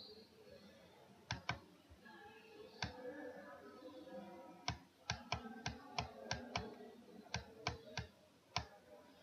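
Faint, irregular clicks of a computer mouse, about fifteen of them, some in quick pairs and bunched together towards the middle, as letters are drawn stroke by stroke on an online whiteboard.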